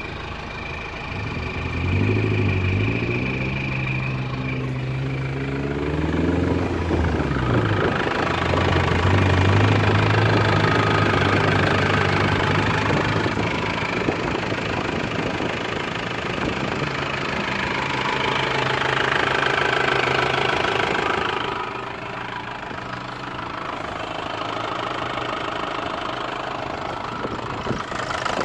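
Volkswagen LT 35's 2.8-litre turbodiesel engine running, heard from beneath the truck by the exhaust. It idles, is revved up about two seconds in and let back down, then is raised again for a few seconds before dropping back to idle about three quarters of the way through.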